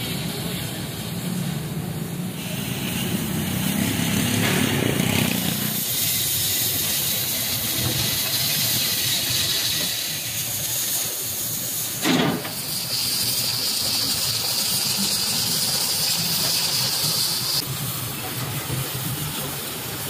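Oxy-fuel cutting torch hissing steadily as it cuts through steel plate, with one sharp crack about twelve seconds in.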